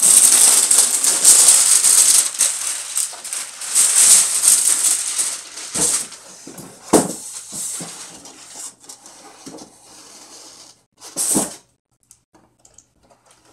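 Long cardboard box of an airsoft rifle being handled and opened: loud rustling and scraping of cardboard and wrapping for about five seconds, then a few sharp knocks and a last short clatter about eleven seconds in.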